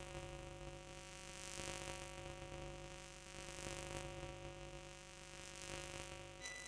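Steady electrical hum with several pitches under a faint hiss that swells and fades about every two seconds; a brief high beep near the end.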